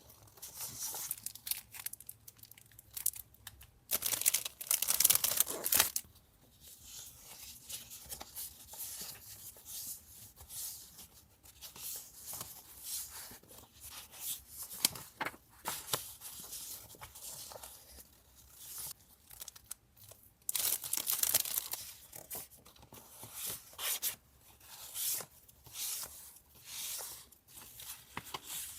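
Paper being torn, with two long rips about four seconds in and again around twenty seconds in, between lighter rustling and crinkling of paper as sheets are handled.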